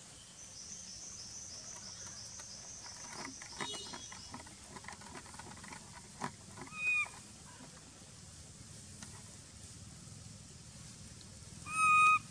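Long-tailed macaques squealing: a short call about seven seconds in, then a louder, held squeal of about half a second near the end. Scattered clicks come in between, and a fast high trill from another source runs through the first few seconds.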